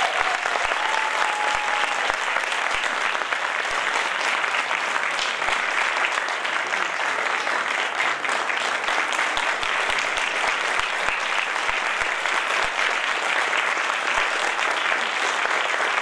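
Audience applauding steadily: a long, even round of clapping from a full hall.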